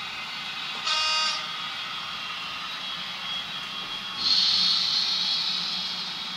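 Model train cars rolling along the layout track, a steady hiss with faint high whining tones. About a second in a short horn-like tone sounds, and at about four seconds a louder hiss rises and slowly fades.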